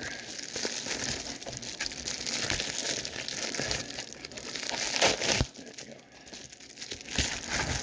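Packaging being opened by hand: a long stretch of crinkling and tearing, easing off for a moment about two-thirds of the way through, with a few sharp clicks.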